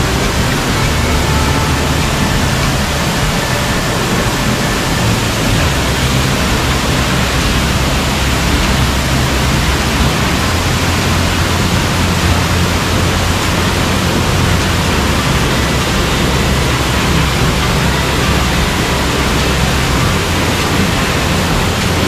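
Loud, steady rush of a tall waterfall plunging close by, a constant roar of falling water with a deep rumble underneath.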